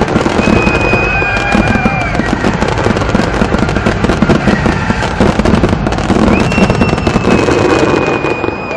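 Aerial fireworks going off in a dense barrage of rapid crackling bangs, with two long high whistles over it, one near the start and one near the end.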